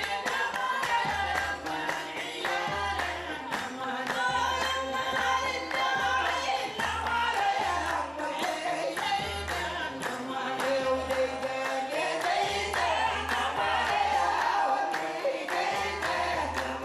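Group singing over a steady drum beat, with clapping or hand percussion.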